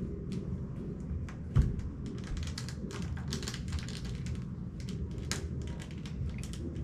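Small plastic toy building pieces clicking and tapping as they are handled and pressed together on a stone countertop, with one louder thump about a second and a half in.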